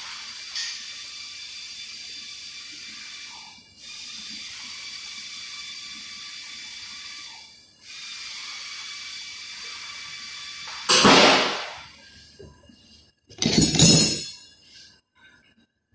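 Hissing of gas released under pressure in three steady bursts of about four seconds each, with a faint whistling tone over the hiss. Near the end come two loud, short rushing noises, the second with a rattling clatter.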